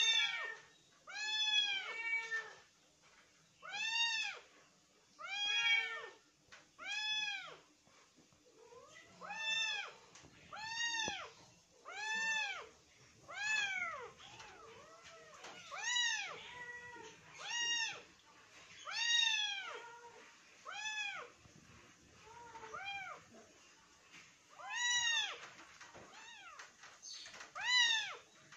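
Young kittens meowing over and over, high-pitched mews about one every second and a half, each rising and then falling in pitch, sometimes two overlapping.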